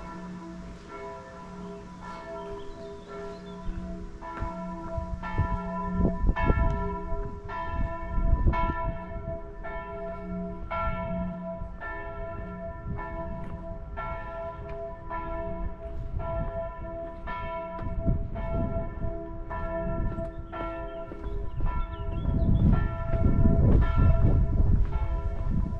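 Church bells ringing, several bells of different pitch struck in a steady, continuous peal. A low rumbling noise swells up near the end and is the loudest part.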